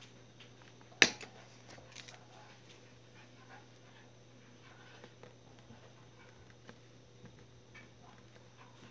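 A sharp tap about a second in as a pencil is set down on the desk, a few lighter clicks, then faint scratching of a pen writing on notebook paper over a low steady hum.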